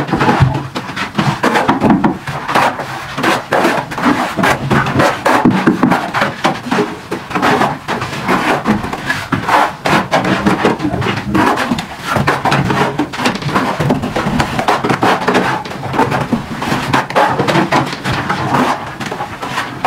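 Steel plastering trowels scraping and slapping cement mortar onto a brick wall in quick, irregular strokes, with mortar being scooped from a bucket.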